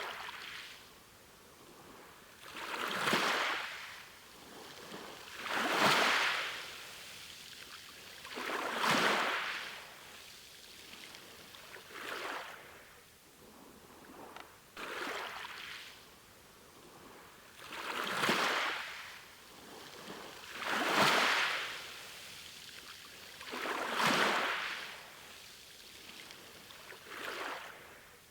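Sea waves breaking and washing in, a swell of surf about every three seconds.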